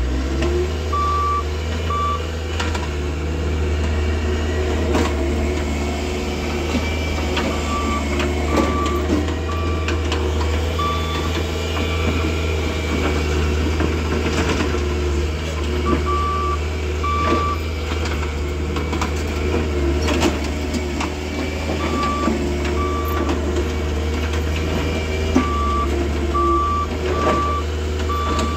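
Bobcat S450 skid-steer loader working in gravel: its diesel engine drones steadily while its reversing alarm beeps in short runs of two to four beeps as it backs and turns, with occasional sharp knocks.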